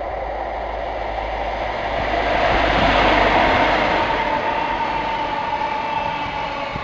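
An HST (InterCity 125) led by a Class 43 diesel power car passes close by. The rumble of engine and wheels swells to its loudest as the power car goes past, then eases as the coaches roll by with a steady high whine.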